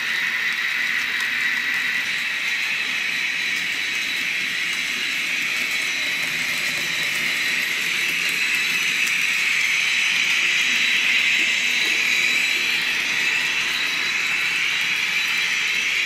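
Hobbytrain N-scale BR 112 electric locomotive model with a sound decoder, running with its train of coaches: a steady hissing whine with a high tone, a little louder about ten seconds in.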